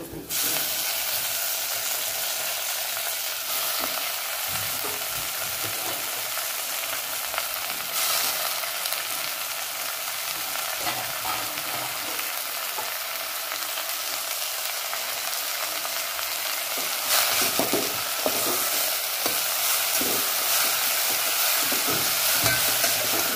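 Chopped onion, garlic and green chilli sizzling in hot oil in a metal pot as chopped taakla (Cassia tora) leaves are dropped in. The frying hiss carries on steadily, and it grows a little louder near the end as a steel spoon stirs and scrapes the pot.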